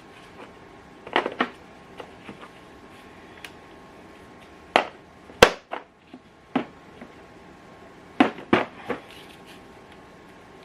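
Irregular metallic clicks and clanks of hand tools and a harmonic balancer puller being worked on the front of a Dodge 5.2 L Magnum V8. The sharpest clank comes about halfway through. A faint steady hum runs underneath.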